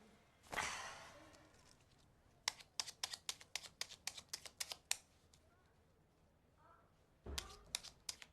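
Plastic hwatu cards being handled: a rushing brush of cards about half a second in, then a quick run of sharp clicks, about five a second, as cards are snapped down one after another, with another brush and more clicks near the end.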